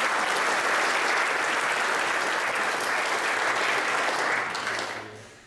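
Conference audience applauding steadily, the clapping dying away near the end.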